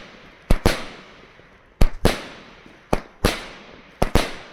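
Pyromax Virus 54-shot firework cake firing: sharp bangs, mostly in close pairs about once a second, each trailing off briefly.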